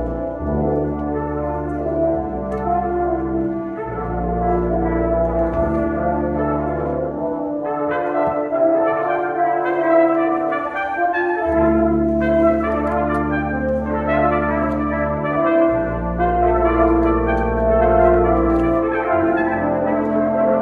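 Brass quintet of trumpets, French horn, trombone and tuba playing a concert piece. The tuba holds long low notes under the upper brass, drops out for a few seconds in the middle, and the upper parts grow busier from there.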